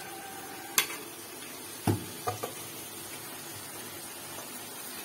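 Raw gizzard and liver pieces going into a pan of hot spiced masala on a gas stove. A sharp metal clink about a second in, then a thud and two lighter knocks of spatula and pan, over a steady faint sizzle.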